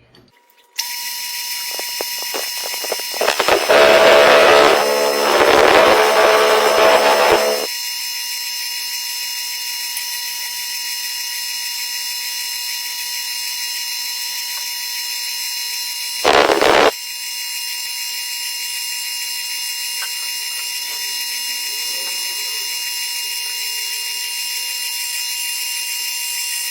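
CNC lathe running with a steady whine, its spinning part pressed against another in friction welding, giving a loud grinding rub for about four seconds. A short loud burst comes about halfway through, then the machine keeps running steadily.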